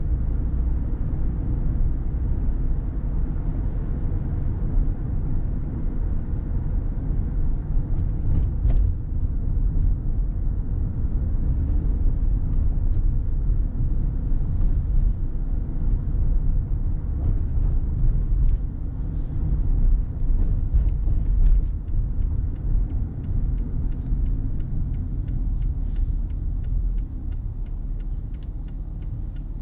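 Car driving on city streets: a steady low rumble of road and engine noise, with a faint regular ticking in the second half.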